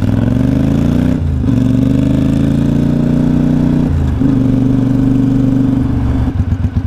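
Triumph Speedmaster 865 parallel-twin motorcycle engine accelerating away from a standstill, its pitch rising, with two upshifts about one second and four seconds in. Near the end the throttle closes and the engine drops back to an uneven pulsing beat.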